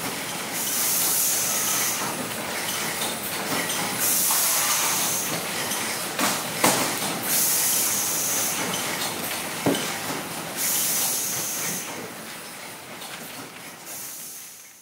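Food-packing line machinery running steadily, with a hiss that comes back about every three seconds and two sharp clicks near the middle. The sound fades out near the end.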